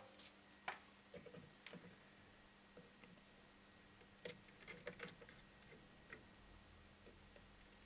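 Near silence with a few faint, scattered small clicks and taps of a soldering iron tip and fingers working at the solder tags of an old capacitor on a tag board, as it is unsoldered; the clearest cluster of clicks comes about four to five seconds in.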